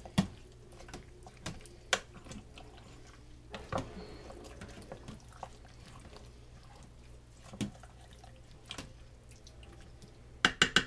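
A spoon stirring beef stew and gravy in an Instant Pot's stainless-steel inner pot: wet, liquid stirring with scattered knocks of the spoon against the pot, and a quick run of clinks near the end.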